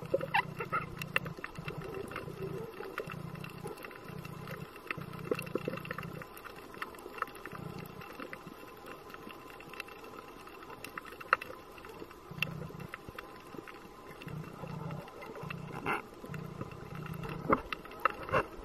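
Underwater ambience: a low rumble that comes and goes in short bursts, with scattered clicks and crackles.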